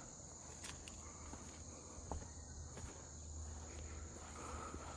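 Faint, steady, high-pitched insect chirring, with a single light knock about two seconds in.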